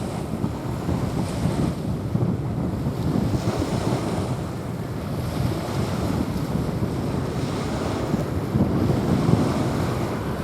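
Small waves washing onto a sandy beach, swelling and fading every few seconds, with wind buffeting the microphone.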